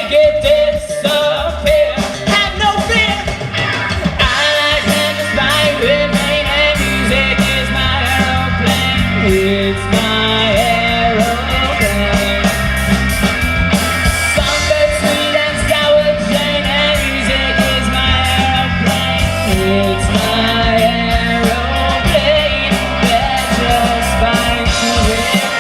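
Live rock band playing a funk-rock song, with drums, bass guitar and electric guitar under a singing voice.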